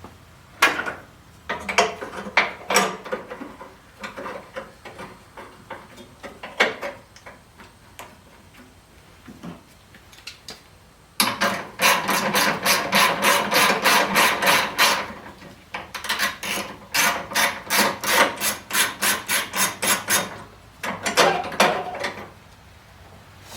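Hand socket ratchet clicking in long even runs of about five clicks a second, with scattered knocks of tools and parts before them, as bolts are worked off an engine.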